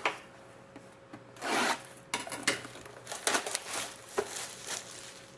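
Trading cards and their packaging being handled, with a short rasp about one and a half seconds in, followed by a run of quick rubbing scrapes and taps as cards slide against one another and the pack.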